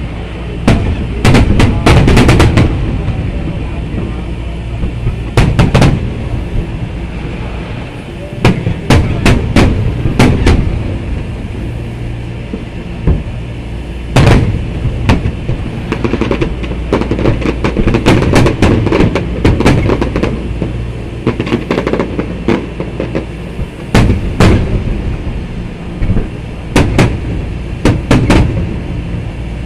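Aerial fireworks shells bursting overhead in a large display: a long run of loud booms, some single and some in rapid clusters, over a steady low rumble.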